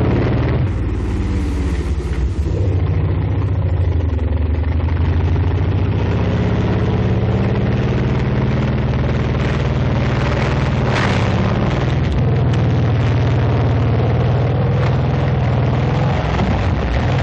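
Tank engine running steadily under load, a continuous low drone with a faint rattle of machinery over it.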